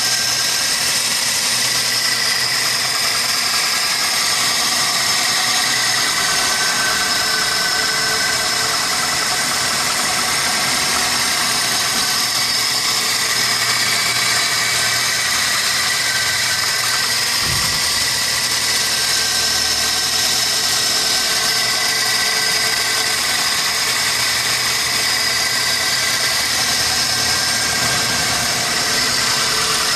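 1999 Toyota Corolla four-cylinder engine idling steadily after a cold start, with one brief low thud a little past the middle. The owner says it misfires when cold, a fault that goes away once the engine warms.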